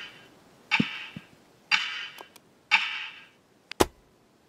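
Smartphone alarm tone repeating about once a second, each beep starting sharply and fading over half a second. Just before the end a sharp click cuts it off, and it stops.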